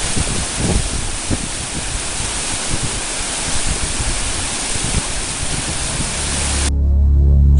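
Shallow mountain stream rushing over rocks in small cascades, a steady hiss of running water. The water sound cuts off near the end and music comes in.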